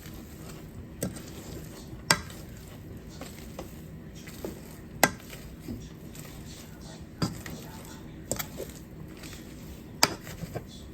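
A potato masher mashing potatoes in a pot, with a sharp knock against the pot every second or two.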